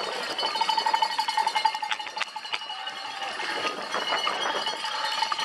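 Spectators' cowbells ringing beside a cyclocross course, a steady clanging for a couple of seconds and again near the end, over the rattle and tyre noise of the bike riding on grass.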